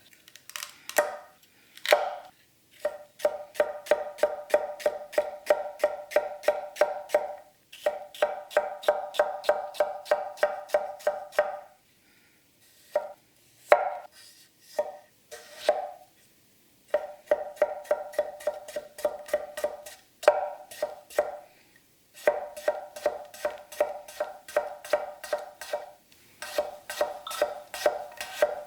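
Kitchen knife, a tall bunka, chopping fast on a cutting board, about four strokes a second, in runs of several seconds with short pauses between. Each stroke knocks with a short ringing note.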